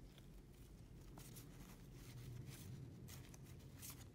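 Near silence, with a few faint rustles and light taps of trading cards and a sticker sheet being handled by gloved hands over a low room hum.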